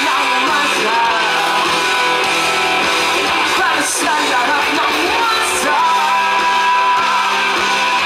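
Rock band playing live through amplifiers: distorted electric guitars, bass guitar and drums with cymbals, and a voice singing over them.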